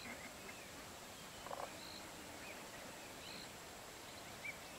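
Quiet bush ambience with faint, scattered short high chirps, typical of birds calling at dusk, and a brief soft rustle about a second and a half in.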